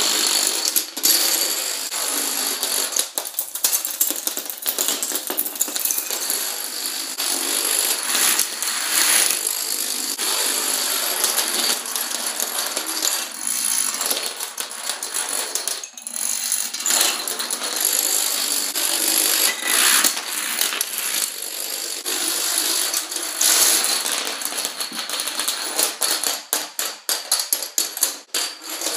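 Chains of dominoes toppling one after another, a fast, continuous clatter of small clicks. There is a short lull about halfway, and the clicks come more spaced out near the end.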